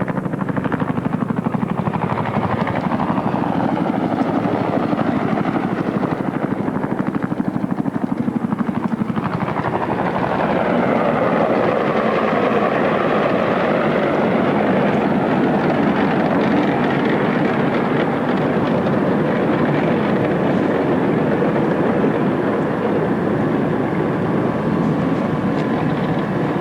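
UH-1H Huey helicopter flying overhead, its two-blade main rotor beating steadily. About nine seconds in the sound grows fuller, and it sweeps in tone as the helicopter passes close by.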